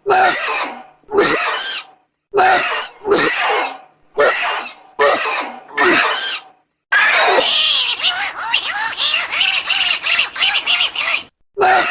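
Custom creature vocal sound effects for Dren: a series of about six short squealing calls, each falling away, followed by a longer rapid chattering squeal lasting about four seconds, then one more short call at the end.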